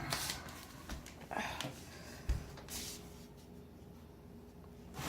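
Faint scraping and handling sounds, with one soft knock about two and a half seconds in, from a screwdriver and hands working the screws on a washing machine's lower panel, over a faint steady hum.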